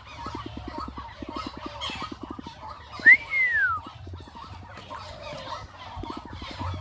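Captive white-breasted waterhens calling in runs of fast, low clucks, with one loud whistled note about three seconds in that rises and then falls.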